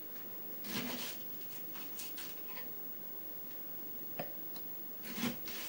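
Kitchen knife chopping leeks on a cutting board: a few separate, irregularly spaced knocks over several seconds.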